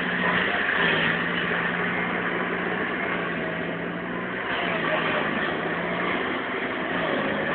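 Tracked excavator's diesel engine running as the machine digs snow, its pitch dropping about a second in and rising again around four and a half seconds as the load changes.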